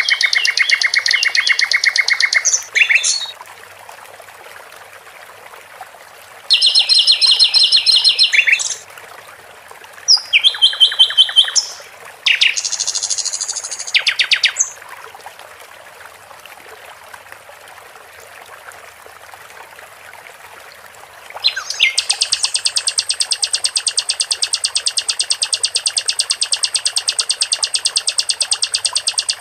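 A sikatan londo songbird singing in phrases of rapid, repeated high notes, each lasting a second or two with short pauses between them, then one long unbroken trill from about two-thirds of the way in. A faint steady trickle of water runs underneath.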